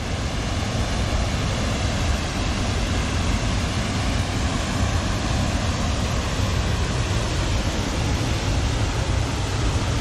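A river waterfall in strong flow, a steady rush of water pouring over a rock ledge with a deep low rumble underneath.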